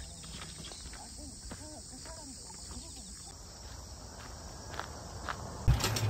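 Faint outdoor ambience on a golf course: a steady high insect chirring that stops about halfway through, with faint distant voices and a few soft clicks. Near the end a louder low wind rumble on the microphone cuts in.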